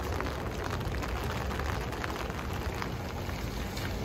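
Steady rain falling on a wet city street, with a low rumble of traffic underneath.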